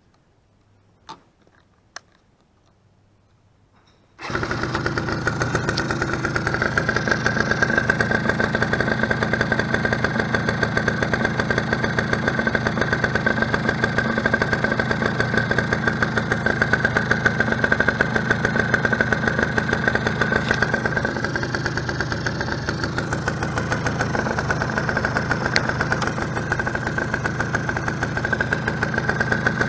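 A couple of faint clicks, then about four seconds in the Eton Viper 90R ATV's two-stroke engine starts and settles into a steady idle.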